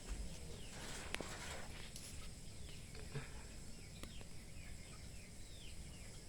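Faint bird chirping: short, falling calls repeated many times, with a few light clicks about a second in.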